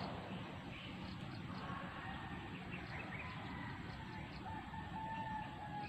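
A rooster crowing faintly, with long drawn-out calls starting about a second and a half in, over steady outdoor background noise.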